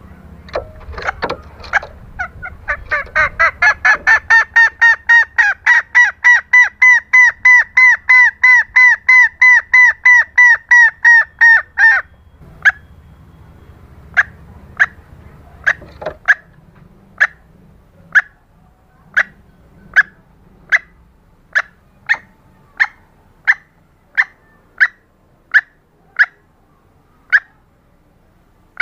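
Red junglefowl hen calls played as a hunting lure. A fast run of short, pitched clucking notes, about four a second, builds up and stops about twelve seconds in, followed by single short notes about once a second.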